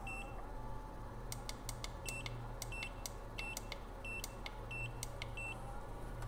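Automatic soldering-tip cleaner giving a run of short, high electronic beeps, about one and a half a second, with light clicks, over a steady low hum. The tip cleaner is not working as it should, which it sometimes does.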